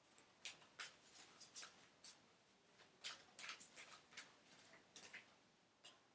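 Faint, irregular ticks and rustles of tarot cards being handled and laid down, a few small clicks each second.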